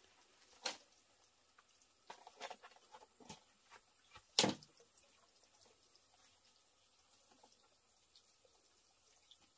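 A few scattered light clicks and knocks, a cluster around two to three and a half seconds in and the loudest about four and a half seconds in, then only faint background.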